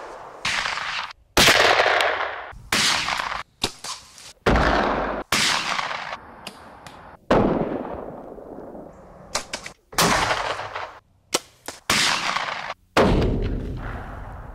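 A rapid series of about a dozen gunshots, each ringing out and fading, then cut off short, one to two seconds apart.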